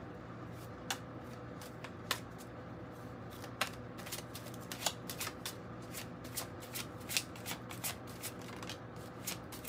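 A deck of tarot cards being shuffled by hand: a few scattered card clicks at first, then quicker, denser clicks of cards slipping through the hands from about four seconds in.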